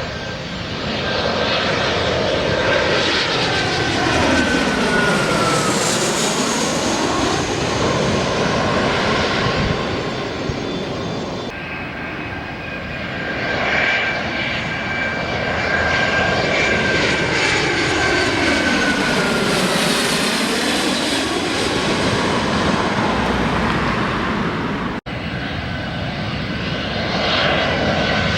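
Arriving airplanes passing low overhead on approach. Each pass is a loud engine roar with a high whine that drops in pitch as the aircraft goes by. The sound changes abruptly twice as it cuts from one arrival to the next.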